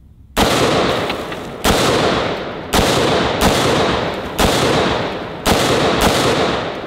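Seven rifle shots from an AR-style rifle, fired at an uneven pace about a second apart, each followed by a long echo that dies away before the next shot.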